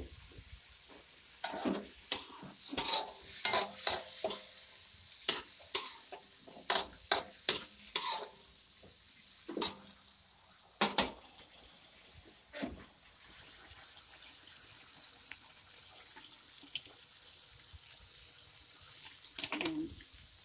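A spatula scraping and knocking against a metal wok as pork pieces are stirred in soy sauce: a quick run of strokes for about the first ten seconds, then only a few. A faint steady sizzle from the pan runs underneath.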